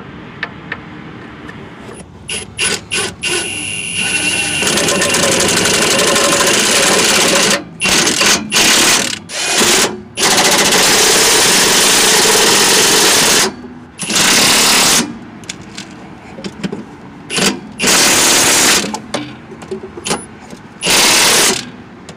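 Cordless impact wrench driving in the steering gearbox mounting bolts: a few short trigger bursts about two seconds in, then long hammering runs of several seconds each, broken by pauses and short blips as each bolt is run in and snugged.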